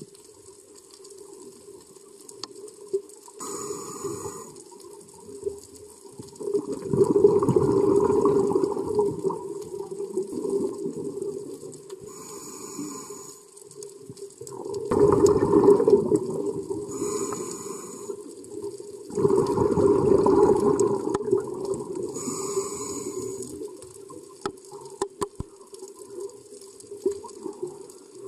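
Scuba diver breathing through a regulator underwater: short hissing inhalations alternate with louder, longer rushes of exhaled bubbles, three exhalations a few seconds apart, over a steady low hum.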